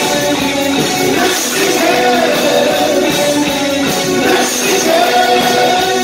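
New wave band playing live on electric guitars, keyboard synthesizer and drums, with a man singing.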